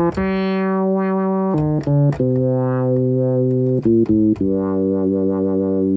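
Moog analog synthesizer holding a few sustained, harmonic-rich notes while its filter cutoff is turned, so the tone brightens and dulls as upper harmonics are taken away and let back in: subtractive synthesis. The note changes several times.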